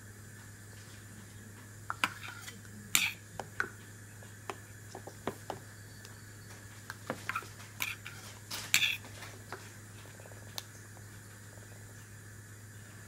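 Scattered light clinks and knocks of a metal feeding spoon and clear plastic bowls during spoon-feeding, loudest about three seconds in and again near the middle, then stopping.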